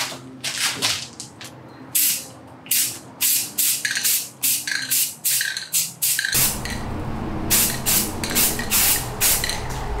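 Aerosol spray can of self-etching primer spraying in many short bursts, light coats on a hanging sheet of aluminium case panel. A steady low rumble comes in about six seconds in.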